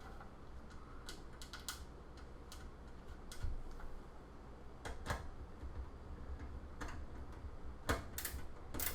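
Screws being driven in to mount a computer power supply in its case: scattered, irregular sharp clicks and taps from the screwdriver and screws.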